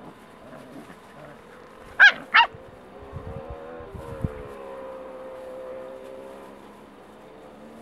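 Two short, high-pitched puppy yips in quick succession about two seconds in, then a faint steady engine hum in the background.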